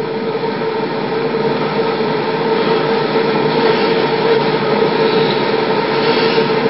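Steady loud hiss with a constant hum running through it, without speech or distinct events: recording noise rather than any sound in the room.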